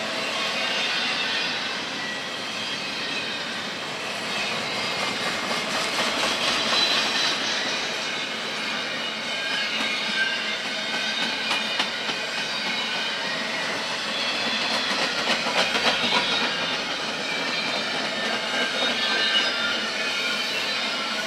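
Double-stack intermodal train's well cars rolling past, steel wheels squealing in thin high tones that come and go, with clusters of clicks over the rail joints about six seconds in and again past the middle.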